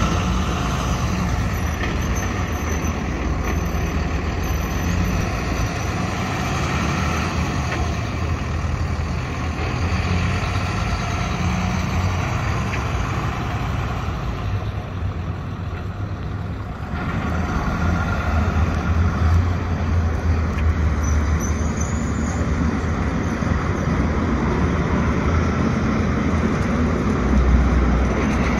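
Dodge Ram 3500 dually pickup truck's engine running as it drives slowly around. It fades for a couple of seconds past the middle and gets louder near the end as the truck comes closer.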